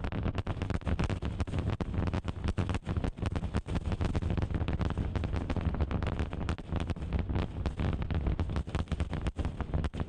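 Super Heavy booster's Raptor engines during ascent: a steady deep rumble with dense, irregular crackling.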